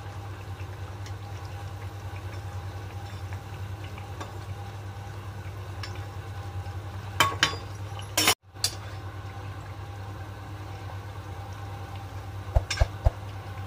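Semolina cookies deep-frying in hot oil in a kadai, a steady sizzle of bubbling oil. A steel slotted spoon clinks against the pan a few times past the middle and near the end, and the sound cuts out for a moment just after 8 seconds.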